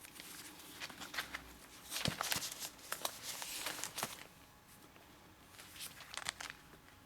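Paper rustling and crinkling as the pages of a phone book are handled and leafed through, in irregular bursts from about one to four seconds in and again briefly near six seconds.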